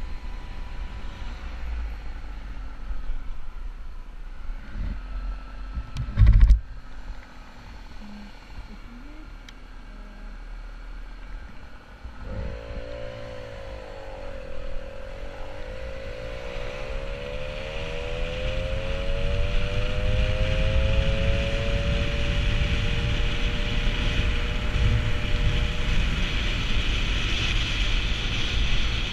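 Peugeot 103 moped's 50 cc two-stroke engine running low at first, then picking up about twelve seconds in: its pitch dips, then climbs steadily as the moped accelerates and holds speed, with a growing rush of wind and road noise. A single brief, loud thump comes about six seconds in.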